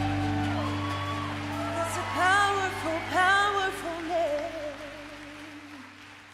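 Live worship band holding a sustained chord over a low bass note, with a singer's short ad-lib phrases sliding up and down in pitch in the middle; the music fades away toward the end.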